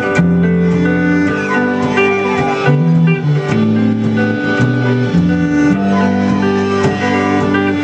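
Live band playing an instrumental passage with no singing: an archtop guitar being strummed and picked, with held notes from other instruments.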